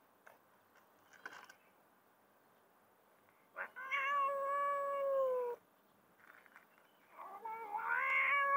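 Cat meowing: two long meows, the first about two seconds long in the middle, the second starting near the end and rising slightly before levelling off.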